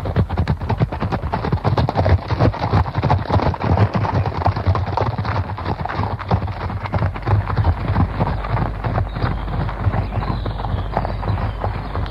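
Hoofbeats of several horses galloping: a dense, rapid, irregular run of hoof thuds, easing slightly in the second half.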